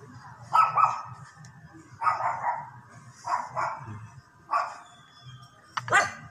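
A dog barking repeatedly: short barks, some in quick pairs, spaced irregularly, over a steady low background hum.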